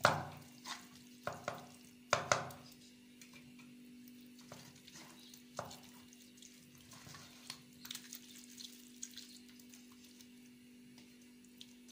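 Hands squishing and turning seasoned chicken pieces in an aluminium pot, with a quick run of knocks and clicks against the pot in the first two and a half seconds, then only scattered light taps. A steady hum runs underneath.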